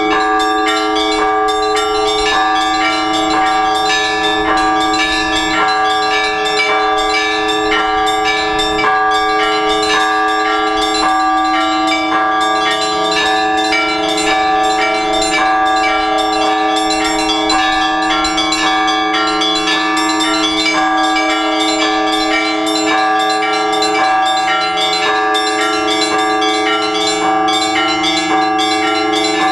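Orthodox church tower bells rung together in a continuous peal: the small bells are struck rapidly over the steady ringing of the larger bells.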